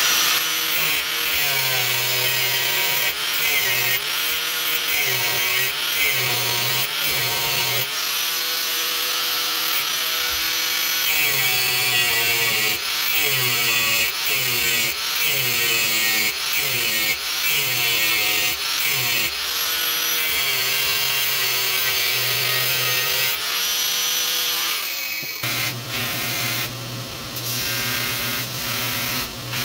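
Power tool cutting a throwing-knife blank out of 1/8-inch 1084 steel flat bar: a loud, continuous cutting noise whose pitch wavers as the cut loads the tool.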